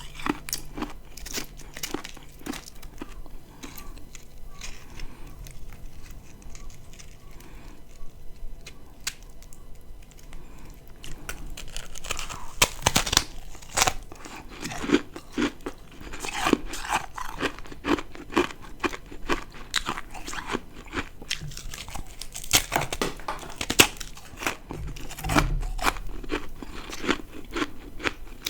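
Close-miked biting and chewing of ice: sharp crunches and crackles one after another. The crunches thin out for several seconds a few seconds in, then come thick and fast again.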